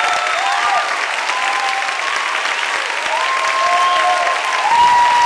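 Audience applauding, with long drawn-out cheers over the clapping, swelling slightly near the end.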